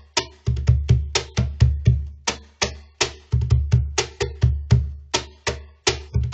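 Cajon played by hand in a syncopated Peruvian groove, mixing deep bass strokes with sharp, bright slaps at about three to four strikes a second.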